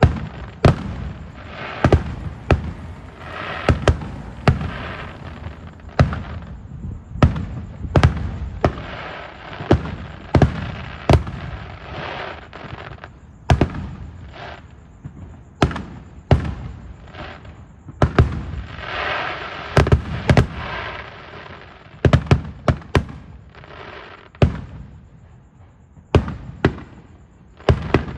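Fireworks going off: a long run of sharp bangs at irregular intervals, often less than a second apart, with stretches of crackling between them.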